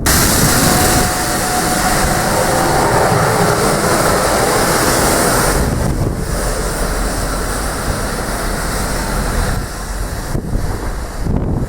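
Train rumbling past on the rails, with wind buffeting the microphone; the noise starts suddenly and eases after about six seconds.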